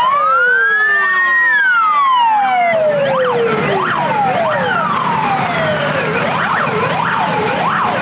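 Several fire-engine sirens sounding at once. A wail rises and then slides down over the first couple of seconds, and about three seconds in overlapping fast up-and-down yelps take over.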